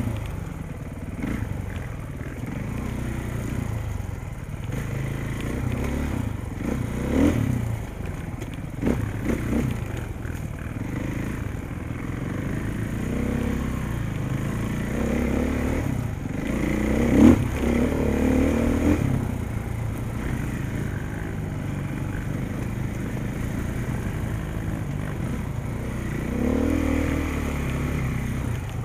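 KTM 450 dirt bike's four-stroke single-cylinder engine running on a trail ride, revs rising and falling, with clatter and a few sharp knocks, the loudest about 17 seconds in.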